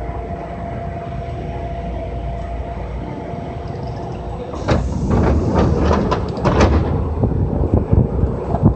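Kintetsu commuter train standing at a station: a steady hum from the car's onboard equipment, then about five seconds in a two-second burst of clatter and hiss as the doors open, with more clicks near the end.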